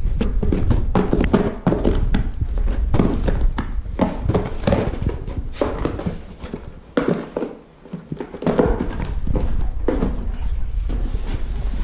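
A golden retriever pawing at and nosing a small cardboard box across carpet: irregular thumps, taps and scuffs of cardboard, with a quieter stretch about six to eight seconds in.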